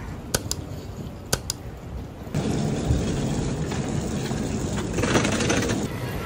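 Passenger train ride noise: a few sharp clicks in pairs, then a louder steady rushing rumble that starts abruptly about two seconds in and cuts off near the end.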